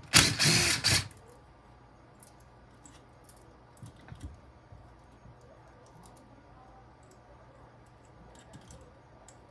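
A power driver runs in a short burst of about a second, then small metal parts click and tap lightly while the clutch springs and bolts are taken off and handled.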